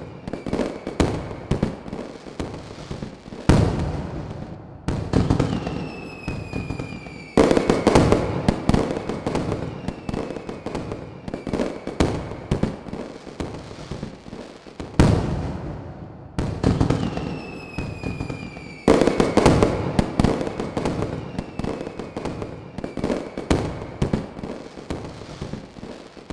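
Fireworks going off continuously: dense crackling and popping, with big bangs four times, about 3.5, 7.5, 15 and 19 seconds in. Several whistling fireworks sound through it, their whistles sliding down in pitch just before the bangs.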